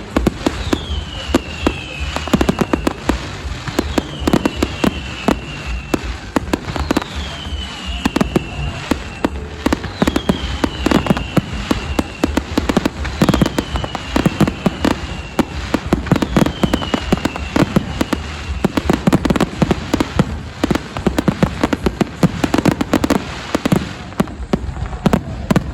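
Fireworks display: a dense, continuous run of bangs and crackling. High falling whistles repeat every second or so through most of it.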